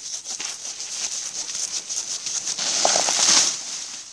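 Bolo knife chopping into a banana trunk, a string of soft irregular hacks with dry banana leaves rustling. The hacks cluster more densely about three seconds in.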